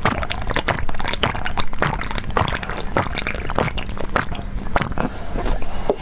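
Close-miked gulping and swallowing as a drink is drunk down from a glass, a fast irregular run of wet, squishy mouth and throat sounds.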